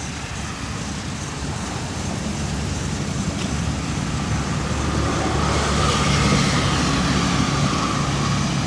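A passing vehicle: a noisy rumble that grows louder to a peak about six seconds in, then begins to fade.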